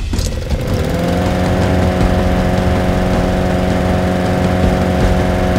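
Troy-Bilt walk-behind lawn mower's small petrol engine pull-started: it catches at once, picks up speed over the first second and settles into a steady run.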